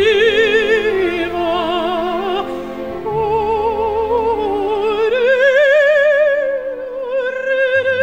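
Operatic singing: one voice holds long notes with a wide vibrato and steps up in pitch about five seconds in, over a low held note underneath.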